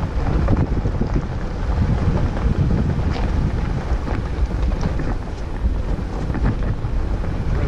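Low rumble of a Jeep Wrangler JLU rolling slowly down a rough, rocky dirt track, with wind buffeting the microphone. A few light clicks and knocks come through from the tyres on gravel.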